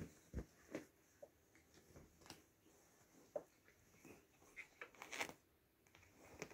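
Faint, scattered rustling and scuffing of two Oriental kittens wrestling on the shiny fabric lining of a cat bed, with a brief flurry about five seconds in.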